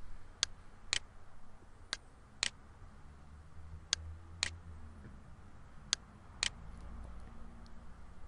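Computer mouse button clicking: eight sharp clicks, mostly in pairs about half a second apart, as line end points are placed in a drawing program, over a faint low hum.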